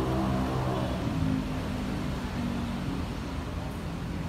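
A man's low, drawn-out chanting voice, sliding slowly between long held notes: the tembang singing of a Sasak pepaosan reading.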